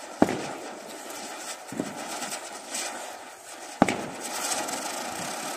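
Diwali ground fireworks hissing steadily as they spray sparks across the ground, with two sharp bangs, one just after the start and one near four seconds, and a smaller pop in between.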